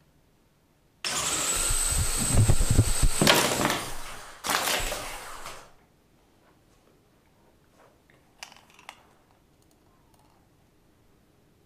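Small electric Lego motors spinning propellers, with a steady high whine over a rushing whirr. They start abruptly about a second in, run for about three seconds, drop away briefly, then run again for just over a second before cutting off. Two light clicks follow later.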